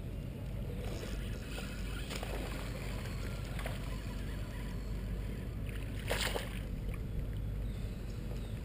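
Kayak paddle dipping and splashing in river water: a few separate strokes, the loudest about six seconds in, over a steady low rush of moving water.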